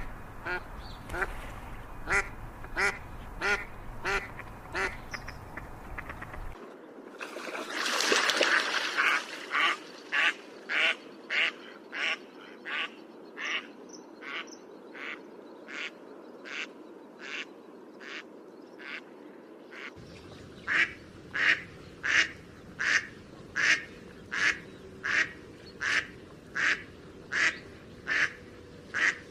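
Ducks quacking in a steady run of evenly spaced quacks, about one and a half a second. A brief loud rushing noise comes about eight seconds in.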